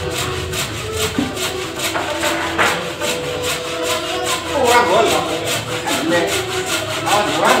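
A hand tool rubbing against the edge of a wooden plywood panel, with background music keeping a quick steady beat.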